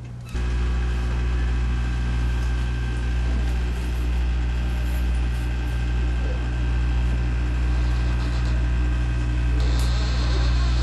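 A steady low machine-like hum made of several fixed tones, starting abruptly just after the start, with a hiss rising in the higher range near the end.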